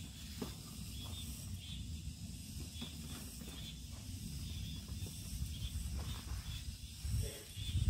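Soft rustling and gritty crumbling as hands rub and press lumps of damp homemade potato starch on paper, with faint scattered ticks. A low uneven rumble runs underneath.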